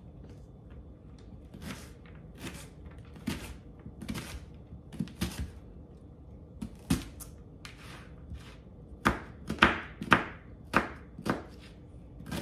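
Kitchen knife chopping an onion on a cutting board: irregular knife strikes against the board, a few scattered ones at first, then faster and louder in the last few seconds.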